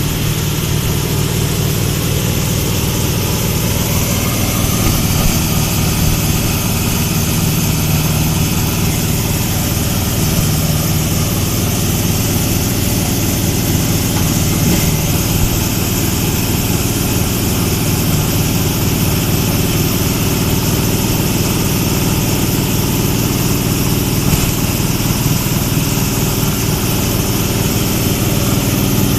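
Multipurpose animal-feed corn grinding machine running steadily, a loud even mechanical hum and rushing noise.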